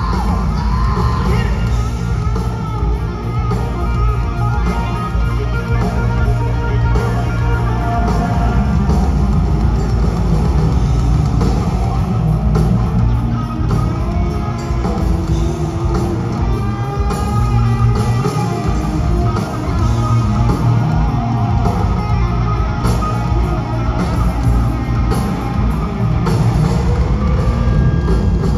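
Live hard rock band playing loud through the PA: a wavering electric guitar lead line over drums and bass, with no singing.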